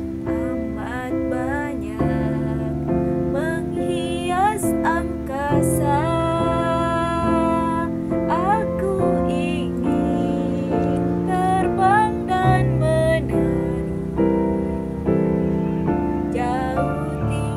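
Soft lullaby music: sustained piano chords under a gliding, wordless high melody.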